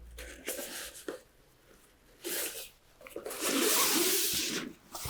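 A stiff plastic insert being slid through the sleeve of a fabric saddlebag and worked around its body, with plastic and fabric rustling and scraping in several bursts; the longest and loudest comes about three seconds in.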